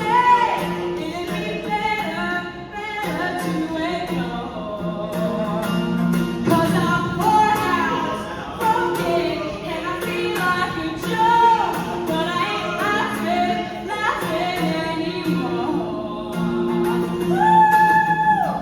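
A woman singing a melodic line over strummed guitar, ending on a long held note near the end.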